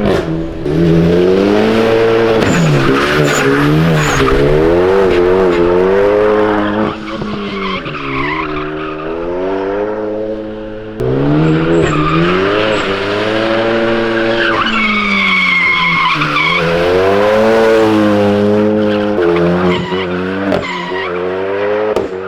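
Car engine revving hard, its pitch rising and falling again and again as the throttle is worked through drifts, with tyres squealing and sliding. A high tyre squeal stands out about fifteen seconds in.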